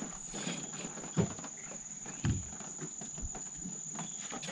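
Steady high-pitched drone of insects in the riverside trees, with two short dull thumps about one and two seconds in as a freshly caught bass is handled in a boat.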